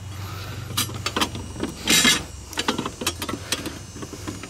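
Sheet-metal parts of a folding Sterno camp stove clicking and knocking as they are fitted together by hand, with one louder scrape about two seconds in.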